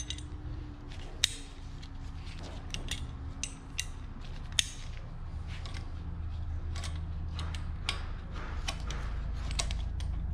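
Irregular metal-on-metal clicks and clinks as a valve spring compressor tool and 3/8-inch breaker bar are fitted under the camshaft and onto a valve spring of a Ford 4.6 SOHC cylinder head. A steady low hum runs underneath and grows a little louder in the second half.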